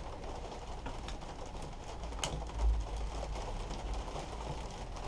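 Faint handling noises of wires being worked loose from the plastic housing of an electric hedge trimmer, with a few light ticks and one sharp click about two seconds in, over a steady low hum.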